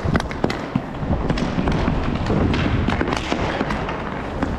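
Roller hockey play: a quick, irregular run of sharp clacks and knocks from sticks and puck striking, over the rolling rumble of inline skate wheels on the rink floor.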